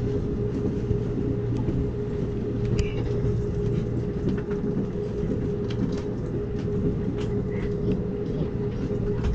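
Amtrak Cascades passenger train rolling along the track: a steady rumble with a constant hum and scattered light clicks and rattles.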